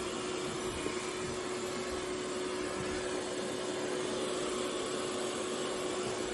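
eufy X10 Pro Omni robot vacuum running: a steady whirring rush with a constant hum.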